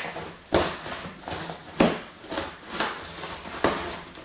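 Scissors cutting the packing tape on a cardboard shipping box: three sharp snips spread over a few seconds, with smaller scrapes and rustles of the cardboard between them.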